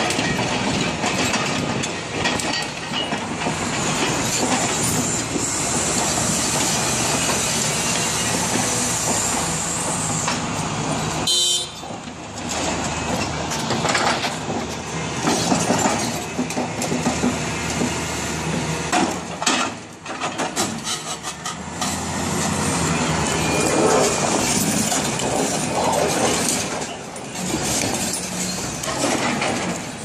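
Volvo wheel loader's diesel engine running hard under load as it pushes a large marble block, with rumbling and scraping from the block and the chained tyres on the rock. The noise drops briefly about a third of the way in.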